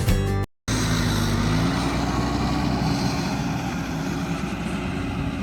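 A Cummins diesel engine in a Ram 3500 pickup runs steadily while the truck is driving, its pitch rising a little about two seconds in.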